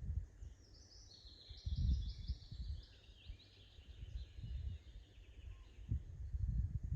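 A songbird singing one phrase of quick high notes that step downward, lasting about three seconds, over a low, gusty rumble that comes and goes.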